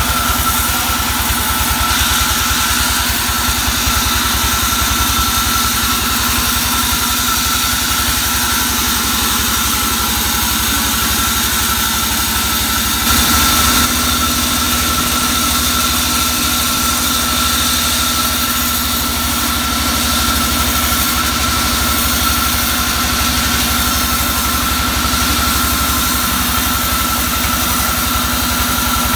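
Band sawmill running steadily: the engine driving the band saw runs at a constant speed under a steady high tone, with a brief louder moment about halfway through.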